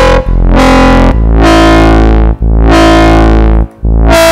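Distorted drum and bass foghorn bass from the Vital synthesizer, playing long, gritty notes of about a second each with short gaps between. Each note's brightness swells open and closes again like a filter sweep, and the timbre shifts as the oscillators' formant wave-morph is turned.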